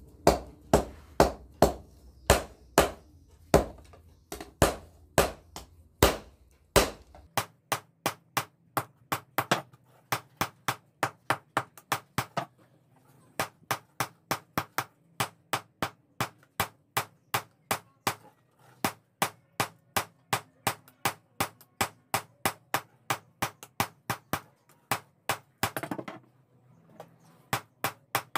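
Hand hammer striking hot pamor steel on an anvil in a steady rhythm, each blow ringing sharply. About two blows a second at first, then faster, about three a second, with two short pauses.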